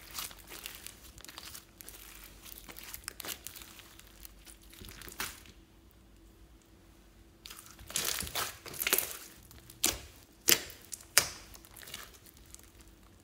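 Glossy slime mixed with floam beads being squeezed, folded and pressed by hands, giving sticky clicks and pops in uneven bursts. There is a lull in the middle, and the pops are sharpest in the second half.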